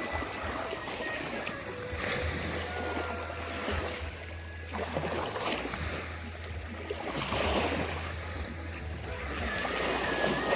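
Wind buffeting the microphone in uneven gusts over the wash of water and waves, with a few faint held high notes.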